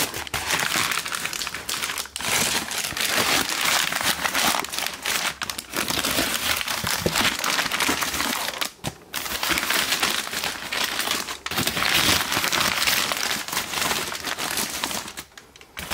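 Crumpled packing paper rustling and crinkling as hands pull it aside in a cardboard box, nearly continuous with a few short pauses; really noisy.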